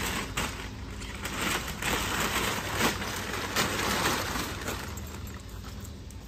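Large metallised foil packing bag crinkling and crackling as it is pulled off a crated machine and bunched up.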